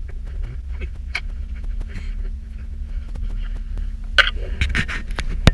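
Low wind noise buffeting the microphone on a moving chairlift, with scattered small clicks and a cluster of louder clattering knocks about four seconds in, ending on one sharp knock.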